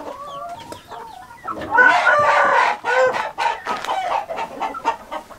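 Hint horozu game rooster crowing once, a loud call of a little over a second starting about one and a half seconds in, with chickens clucking around it.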